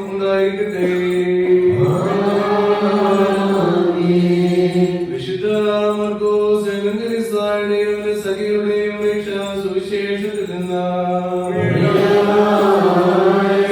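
Liturgical chanting in a slow, drawn-out melody over a steady held note, with new phrases sweeping up in pitch about two seconds in and again near the end.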